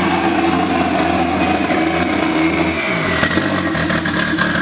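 Car engine running and revving, with a high whine that slowly falls in pitch.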